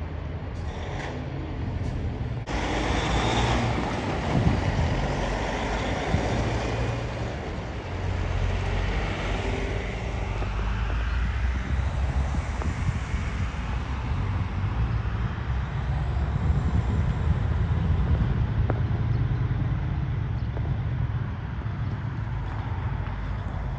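Steady low rumble of idling heavy diesel engines under a broad outdoor noise, with a sudden rise in the noise about two and a half seconds in.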